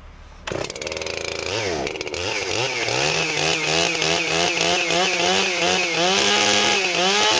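Husqvarna 288 two-stroke chainsaw engine in freezing cold. About half a second in it suddenly comes up loud, then is revved up and down repeatedly, its pitch climbing overall.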